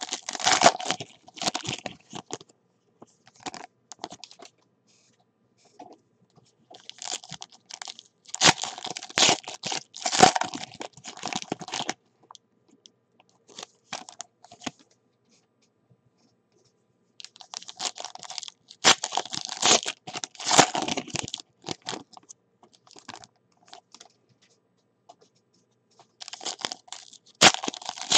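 Foil wrappers of 2018 Panini Select football card packs crinkling and tearing open by hand. The sound comes in four bursts of a few seconds each, with quiet pauses between them.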